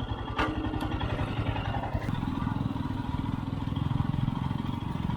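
Single-cylinder adventure motorcycle engine running at low speed on a rough trail, with a steady pulsing beat. There are two sharp clicks about half a second in, and the engine note grows heavier from about two seconds in as it takes more throttle.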